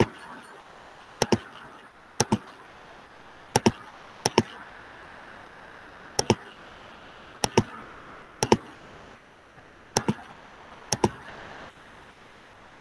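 Computer mouse clicking: about nine quick double clicks, irregularly spaced about a second apart, over a faint steady hiss.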